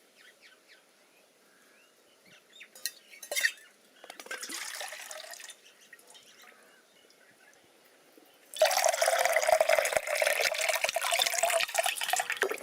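Water pouring and splashing: a short splash near the middle, then a loud, continuous pour for the last four seconds, with a few clicks before it.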